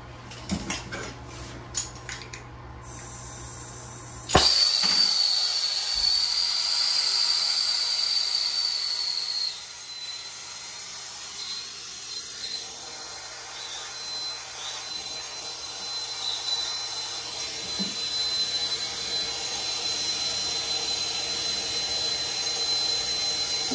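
Hose-fed handheld gas torch lit with a sudden pop about four seconds in, after a few small handling clicks, then burning with a steady hiss and a high whistle as it heats a copper pipe joint for sweating (soldering).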